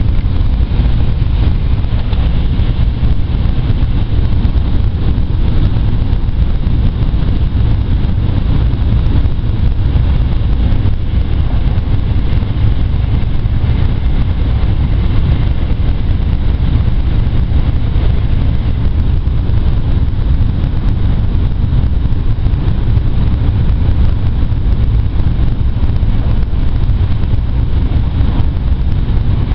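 Cabin noise inside an N700A Shinkansen running at high speed: a loud, steady low rumble with an even hiss of wind and track noise over it.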